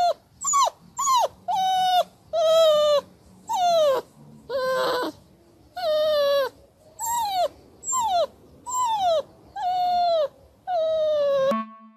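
A dog howling in a string of about a dozen short cries with brief pauses between them, each one falling in pitch.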